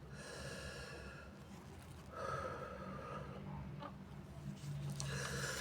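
A man's heavy, noisy breaths through a nose congested by sinusitis, three long breaths in a row, as a sneeze builds.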